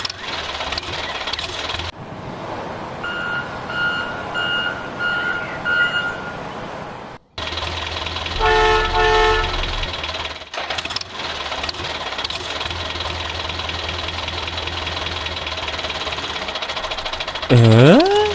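Vehicle sounds: a run of about five short, evenly spaced beeps like a reversing alarm, then a brief horn honk, over a steady engine-like hum with a high whine. Near the end a swooping glide dips in pitch and rises again.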